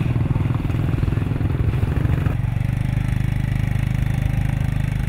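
Small motor scooter engines running close by. About two seconds in the engine note changes and settles into a steadier hum.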